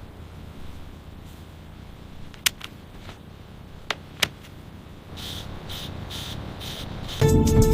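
A faint steady hum with a few sharp clicks, then a run of short hissy pulses about two a second; music starts abruptly near the end.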